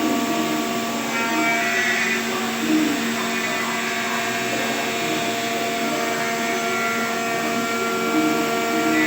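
Electric power tool motor running steadily with a constant whine, rougher patches of higher-pitched noise coming and going over it.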